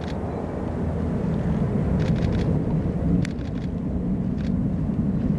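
Low, steady rumble of a Boeing 737-800's CFM56-7B jet engines on final approach, heard from afar and growing slightly louder. A few short high-pitched ticks cut through it about two, three and four and a half seconds in.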